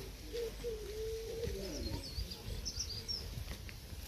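Birds calling: a low wavering call that holds and then falls over the first two seconds, and a short run of high chirps around the middle, over a low outdoor rumble.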